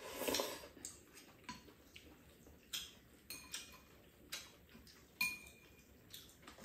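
Noodles slurped, then metal chopsticks clicking and tapping against ceramic bowls: a string of sharp clicks, one of them ringing briefly.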